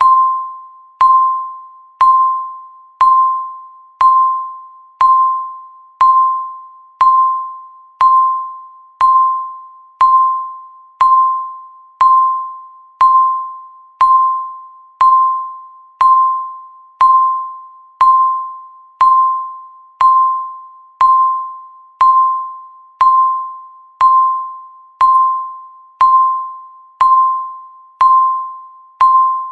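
Countdown timer beeping once every second: a single-pitch electronic beep that starts sharply and fades away before the next, ticking off the seconds left.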